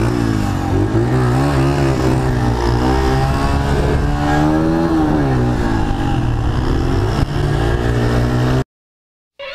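Dirt bike engine running under way, its pitch rising and falling as the throttle opens and closes, with wind noise over it. The sound cuts off abruptly about a second before the end.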